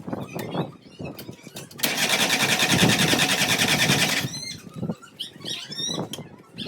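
A small machine runs with a loud, rapid rattle for about two and a half seconds, then stops abruptly. Birds chirp after it.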